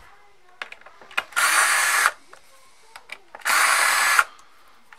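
Cordless drill-driver backing screws out of a circuit board: two short runs of the motor, each under a second, with light clicks between them.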